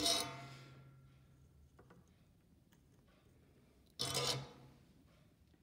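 Soldering iron clattering against the metal coil of its stand, once as it is lifted out and again about four seconds later as it goes back in; each is a short metallic rattle that rings briefly.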